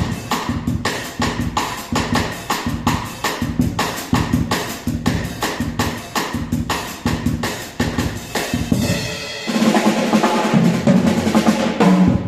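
Drum kit played in a steady beat of kick and snare strikes; about nine and a half seconds in it gives way to a denser, sustained wash with a held pitched tone underneath.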